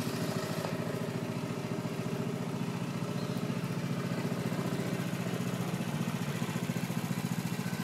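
Small boat engine running steadily with a fast, even chugging.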